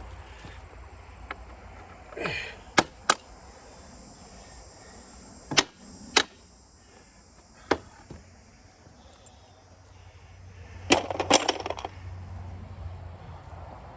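Irregular sharp metallic knocks and clinks on iron sawmill parts, seven or so separate strikes, with a quick cluster about eleven seconds in.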